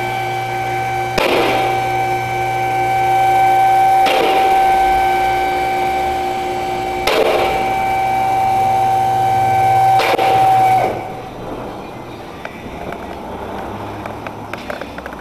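A machine running with a steady whine and low hum, swelling with a swishing surge about every three seconds, then shutting off about eleven seconds in.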